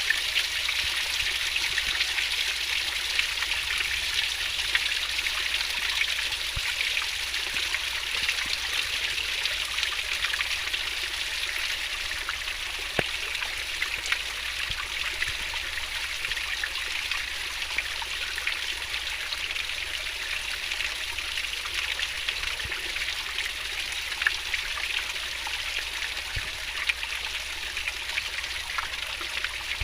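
Fast-flowing stream babbling steadily, a continuous rushing hiss with small splashes and droplet ticks.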